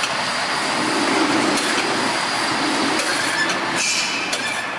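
Steady workshop machinery noise, an even hiss with a low hum and a few faint clicks.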